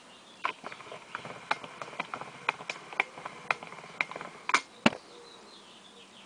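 A rapid, uneven run of sharp clicks or taps, a few a second, ending about five seconds in with two louder ones.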